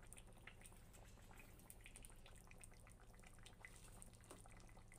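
Near silence: faint scattered pops of duck curry simmering in a pot, over a low steady hum.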